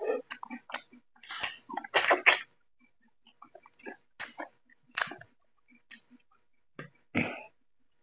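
Close-up chewing and mouth sounds of a man eating rice and chicken curry by hand, in irregular short bursts with pauses between, loudest about two seconds in.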